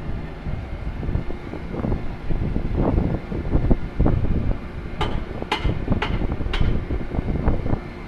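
Wind buffeting the microphone over a steady low rumble, with four sharp clicks about half a second apart in the second half.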